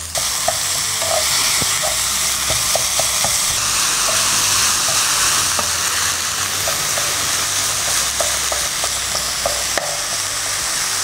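Minced chicken sizzling as it fries with browned mushrooms and onion in a nonstick pan, the hiss jumping up loud as the chicken goes in. A slotted wooden spatula stirs it, with scattered small taps and scrapes against the pan.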